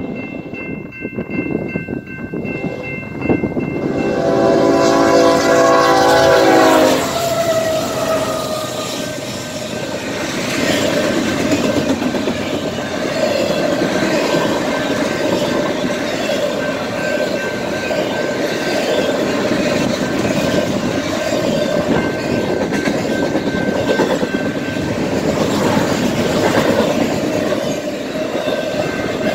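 Grade-crossing warning bell ringing, then a BNSF diesel locomotive's air horn sounding one loud blast of about three seconds, starting about four seconds in. After the horn, the steady rush and clickety-clack of a double-stack intermodal train's wheels and cars passing at speed over the crossing.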